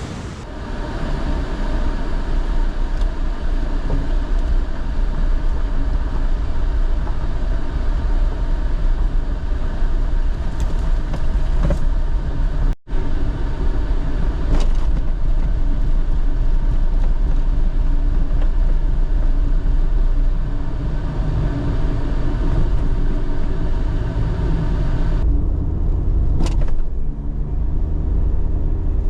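Car on the move, heard from inside: steady engine and road rumble, with a brief cut about halfway through.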